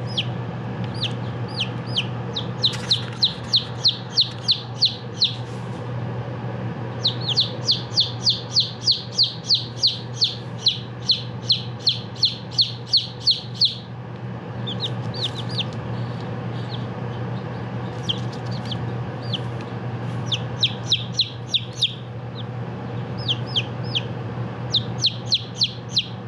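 Five-day-old chicks peeping: high, short, falling peeps several a second, in bouts separated by short pauses. A steady low hum runs underneath.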